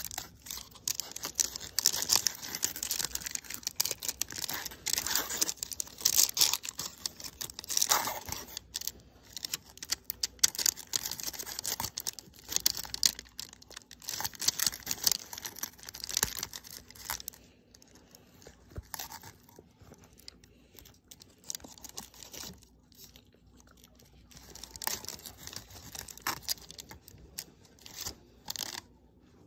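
Aluminium foil wrapper of a Lotte chocolate bar being peeled and torn open by hand: a dense run of crinkling and tearing crackles that thins out and gets quieter a little past halfway, then scattered crackles near the end.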